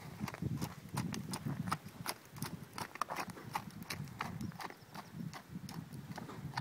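Hooves of a ridden horse striking a packed dirt arena in a quick, even beat, about four or five hoofbeats a second.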